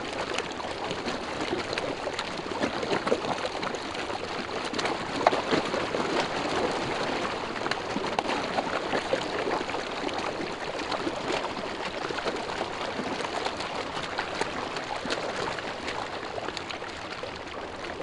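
A packed shoal of fish thrashing at the surface of shallow river water in a feeding frenzy: a constant churn of many small splashes and slaps.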